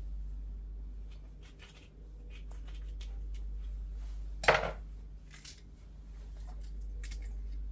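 Kitchen food-prep handling: light clicks and knocks of a knife and dishes, with one louder clatter about halfway through, over a steady low hum.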